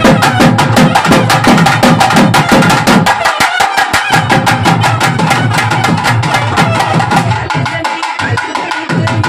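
Festival percussion: drums beaten loud and fast with a steady, even beat of sharp strikes.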